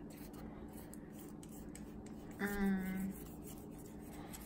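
Spoon scraping cake batter out of a stainless steel mixing bowl, a faint, scratchy rubbing. About two and a half seconds in, a brief voice holds one low note for under a second.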